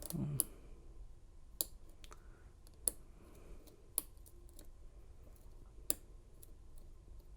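Sharp metallic clicks of a lock pick and tension tool working the pins of a laminated steel padlock, about five distinct clicks spaced a second or so apart with faint scraping between. This is the picker working spool pins out of a false set.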